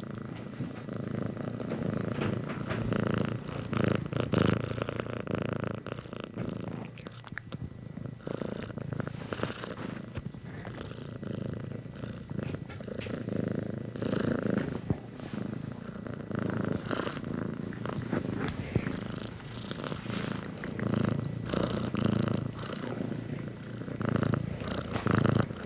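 A domestic cat purring steadily, the purr swelling and easing every second or two.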